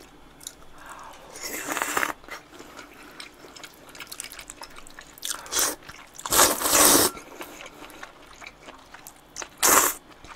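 Cold buckwheat noodles in broth (mul-naengmyeon) being slurped up in four short noisy bursts, the loudest and longest about six and a half seconds in, with small chewing clicks between.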